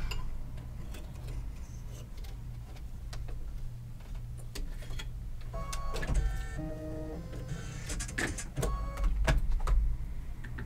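Threading a Brother Luminaire 2 embroidery machine by hand: scattered light clicks and handling sounds over a low steady hum. From about halfway through, a mechanical whirring with stepping pitches comes and goes.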